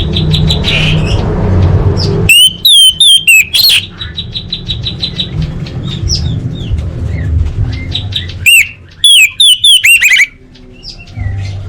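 Orange-headed thrush singing: loud whistled phrases of quickly sweeping notes in two bursts, with fast chattering notes between them. A steady low hum runs underneath.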